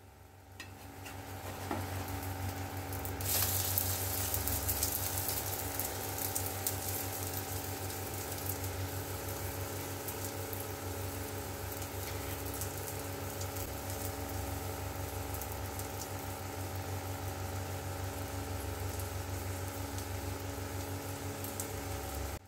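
Egg omelette frying in oil on a flat pan: a steady sizzle that builds over the first few seconds and then holds, with a steady low hum underneath.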